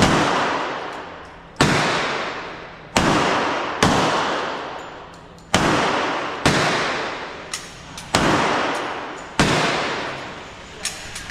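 A series of gunshots, about eight loud shots roughly a second apart. Each is followed by a long echoing decay, and a few fainter cracks fall in between.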